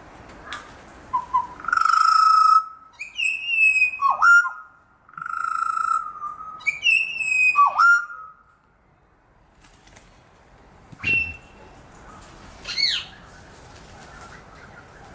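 Pied butcherbird song: a clear, fluting whistled phrase sung twice, each time a long held note followed by quick higher notes and a sharp downward swoop. Two fainter short calls follow near the end.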